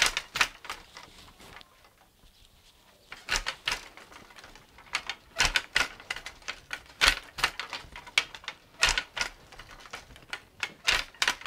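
Wooden hand loom being worked, giving irregular clusters of sharp wooden clacks and knocks, with a pause of about two seconds near the start.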